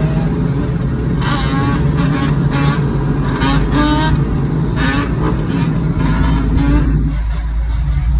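Steady drone of a car driving, heard from inside the cabin, with a person's voice over it for several seconds in the middle.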